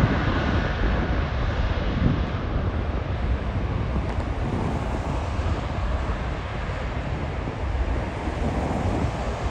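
Jet airliner noise trailing off after a pass, a steady rumbling roar that slowly fades, with wind buffeting the microphone.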